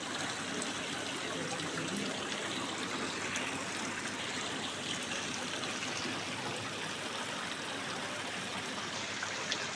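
Steady, even rushing noise like running water, with a few faint ticks.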